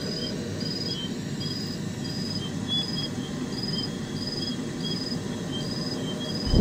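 An insect chirping in short, high, evenly spaced chirps, about two a second, over a steady low background rumble.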